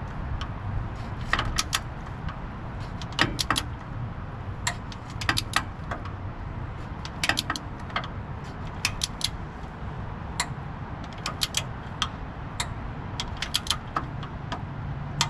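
Hand tools working a bolt on the engine make sharp metallic clicks and clinks, in short irregular clusters of two or three. A steady low hum runs underneath.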